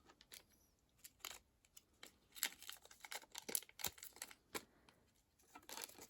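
Faint, irregular rustling and light clicks of small packaging and jewellery being handled, busiest in the middle.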